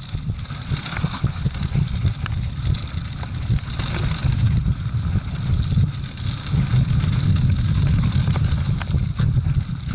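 Mountain bike rolling down a dry, leaf-strewn trail: wind buffeting the camera microphone as a heavy rumble, over a crackle of tyres on dry leaves and dirt and small rattles of the bike over bumps. It grows louder through the first half and stays loud.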